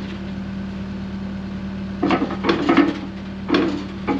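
Diesel engine of a mini excavator running steadily, with a cluster of sharp metal clanks about two seconds in and another couple near the end as the part being fitted knocks against the machine.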